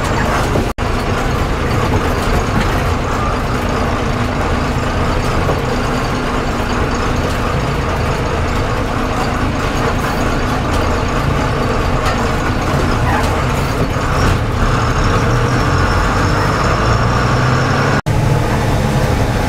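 Bus engine running under way with road and rattle noise, heard from inside the cab, steady throughout, with two very short gaps, one about a second in and one near the end.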